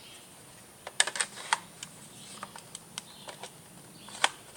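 Parts of a Double Eagle M41 airsoft rifle clicking and knocking as an attachment is pushed on and refuses to seat: a quick run of clicks about a second in, scattered single clicks, and one sharp click near the end.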